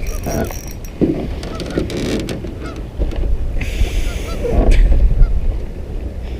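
Geese honking repeatedly in short calls, over wind buffeting the microphone, with scattered sharp clicks.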